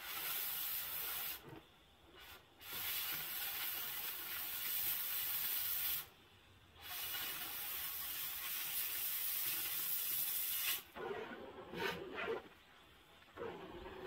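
Oxy-fuel cutting torch hissing steadily as it cuts through steel pipe, the jet starting and stopping sharply three times. In the last few seconds, shorter scraping and knocking sounds as the pipe is handled.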